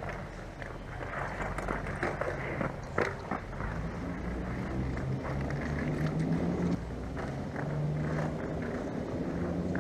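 Scattered knocks and clacks of hockey sticks and ball on the plastic dek hockey tiles and boards, the sharpest about three seconds in, over a steady low rumble.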